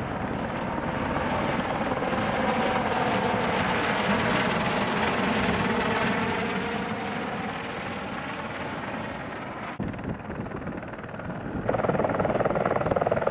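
Tour helicopter with a ducted (fenestron) tail rotor flying past, its rotor and turbine sound gliding in pitch as it goes by. The sound drops off briefly and then comes back louder near the end as a helicopter passes close.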